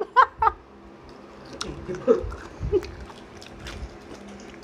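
People chewing and biting food, with scattered faint clicks and small mouth noises; a short spoken word at the very start.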